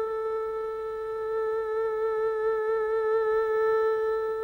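Background music: a single long held note, steady with a slight waver.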